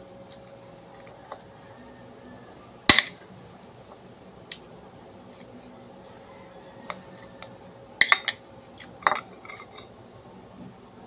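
Metal spoon clinking and scraping against a bowl while eating: a few separate sharp clinks, the loudest about three seconds in, and a quick cluster of them near the end.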